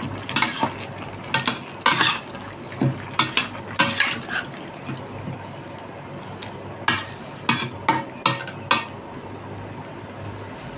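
Spatula scraping and clanking against a stainless steel wok while stir-frying cabbage. The clatters come in quick runs of strokes, with a pause of about two seconds around the middle.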